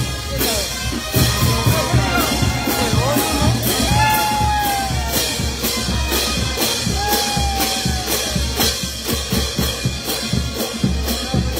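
Brass band playing live: saxophones and trumpets over a steady beat of bass drum, snare and crash cymbals.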